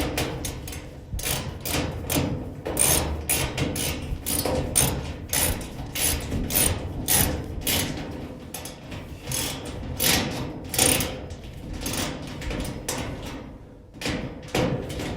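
Irregular knocks and clanks of a clothes dryer's sheet-metal panel being bent and worked into line, about one or two a second.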